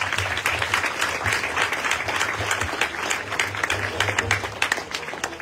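Crowd applauding with dense, continuous hand-clapping, thinning slightly near the end.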